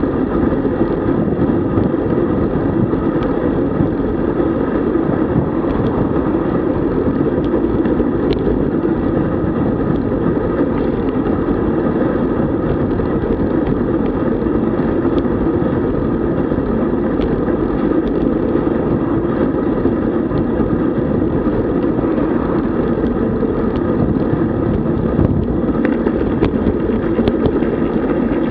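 Steady rush of wind on the microphone and road noise from a road bicycle being ridden, unbroken throughout.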